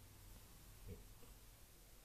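Near silence: room tone, with one faint short sound about a second in.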